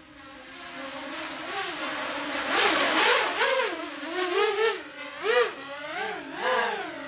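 Brushless motors and KingKong 5040 props of a 5-inch FPV racing quadcopter whining in flight. The sound grows louder over the first few seconds as the quad comes close, then its pitch swoops up and down in quick surges as the throttle is worked.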